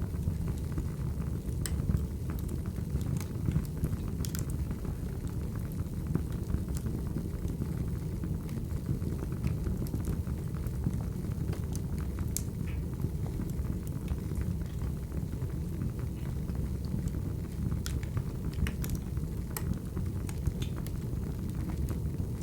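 Wood fire burning, a steady low rumble with scattered sharp crackles and pops.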